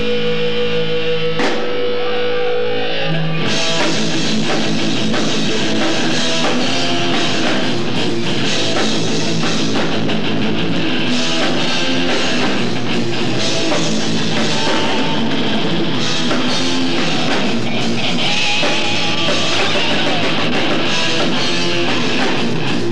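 Live rock band playing electric guitar, bass guitar and drum kit. Held notes ring for about the first three and a half seconds, then the full band comes in and plays on.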